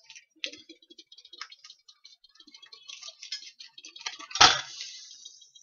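Paper wrapper crackling as a stick of butter is peeled open, then the butter dropped into a stainless steel pot with one loud thud about four and a half seconds in, followed by a hiss that fades over about a second.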